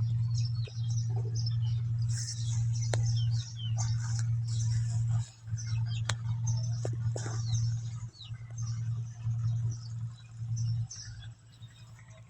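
Many short, high squeaks and chirps from a small animal, some sliding down in pitch, over a loud steady low hum that cuts out briefly a few times.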